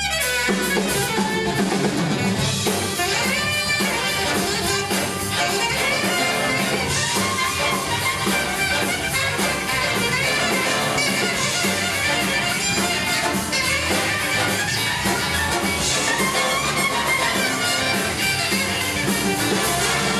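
Big band jazz playing, with brass and drum kit.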